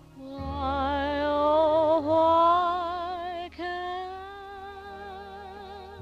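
Slow ballad music: a long held melody note with vibrato, rising slowly in pitch over a sustained low bass note, with a brief break about three and a half seconds in before it holds on.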